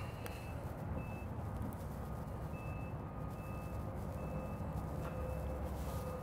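A vehicle's reversing alarm beeping, short high beeps a little under a second apart, over a steady low engine rumble.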